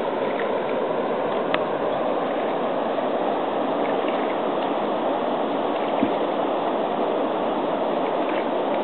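Steady rush of flowing river water, with a few faint knocks.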